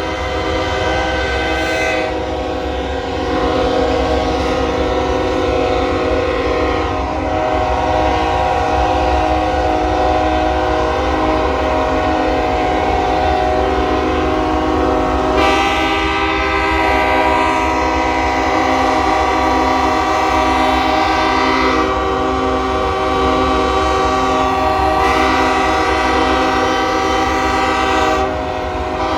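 Several locomotive air horns blowing at once in overlapping chords, held continuously, with horns dropping out and joining now and then and more coming in about halfway through. A steady low rumble runs underneath.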